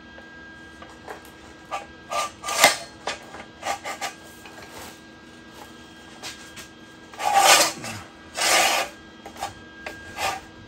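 Galvanized steel unistrut channel being slid through steel roller brackets: a string of short metal rubs, scrapes and knocks, with two longer, louder scrapes near the end.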